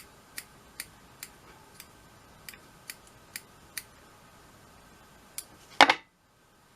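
Small fly-tying scissors snipping loose hair ends, about ten short sharp clicks at roughly two or three a second, then a louder knock near the end, after which the sound drops out suddenly.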